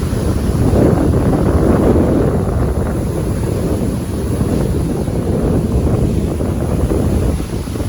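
Wind buffeting the phone's microphone: a loud, uneven low rumble that swells and dips.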